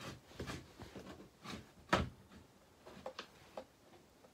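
Hands handling a hard plastic Capri tool case: faint taps and knocks, the loudest about two seconds in, then a few light clicks near the end as the case's latch is worked.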